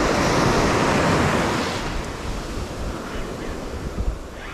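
Sea surf washing up the beach: a wave swells loudly over the first couple of seconds, then eases off as it draws back. Wind buffets the microphone throughout.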